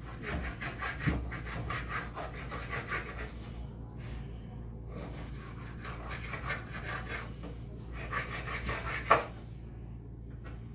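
Kitchen knife sawing through a raw salmon fillet on a wooden cutting board, in quick back-and-forth scraping strokes. The strokes pause briefly about four seconds in, and there is one sharper knock about nine seconds in.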